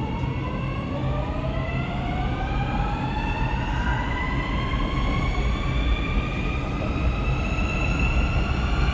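Siemens Inspiro metro train accelerating away from a station: its traction motors whine in several tones that rise steadily in pitch together, over a steady low rumble of the running gear.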